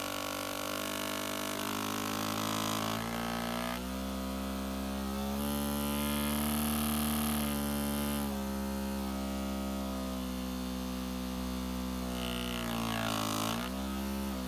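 Small DC vibration motor with an off-centre weight buzzing hard against a plastic bowl of distilled water, a makeshift ultrasonic cleaner shaking the water around a camera lens. A steady droning hum whose pitch dips and rises a few times as the motor's speed wavers.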